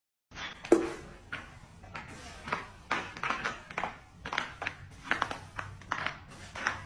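An irregular run of sharp taps and knocks, roughly two a second, the loudest about a second in.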